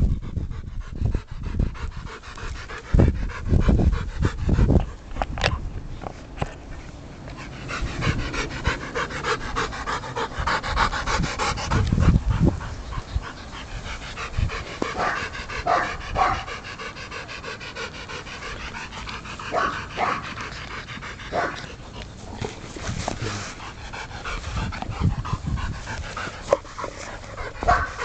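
Ten-week-old Rottweiler puppy panting, with a few low thumps in the first few seconds.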